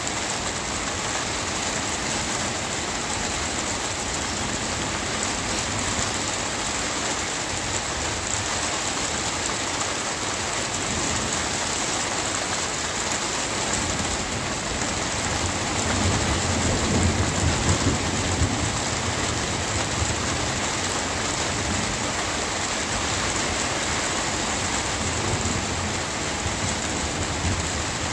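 Steady rain falling, with a low rumble of thunder swelling a little past halfway and fading after a few seconds.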